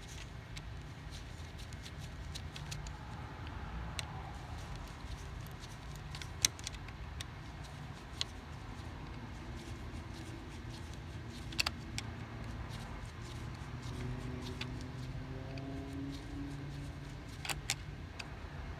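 Screwdriver tightening a hose clamp on a heater hose: scattered small metallic clicks and taps over a low steady rumble.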